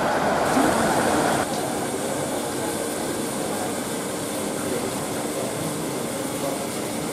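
JNR Class D51 steam locomotive D51 498 moving slowly with a steady hiss of steam. The sound drops abruptly about a second and a half in, then carries on quieter and even.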